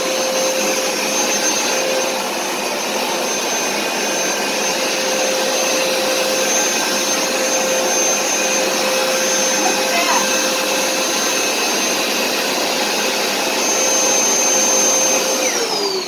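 Hoover SmartWash carpet cleaner's suction motor running steadily with a whine, drawing water back up out of the carpet in dry mode. Near the end it is switched off and the whine falls in pitch as the motor winds down.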